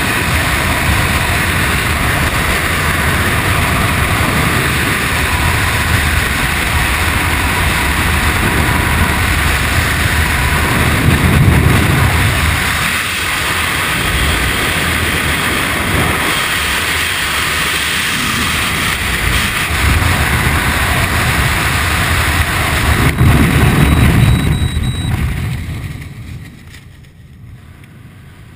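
Loud, steady wind rush of skydiving freefall on a helmet-mounted camera's microphone, swelling louder twice. A few seconds before the end the rush falls away sharply to a low hiss as the parachute opens and the fall slows under canopy.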